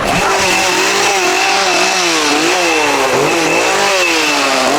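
Chainsaw revved again and again, its pitch rising and falling in repeated swells and sliding down near the end.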